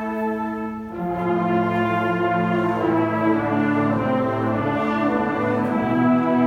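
Concert band of woodwinds and brass playing sustained chords; about a second in, a new, fuller and louder chord with deeper bass comes in.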